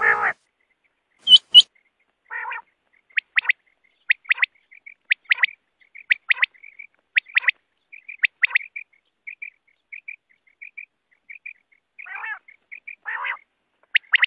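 Quail calling: quick, sharp call notes, mostly in pairs about once a second, with softer short notes between. A few harsher, rasping calls come near the start and again near the end.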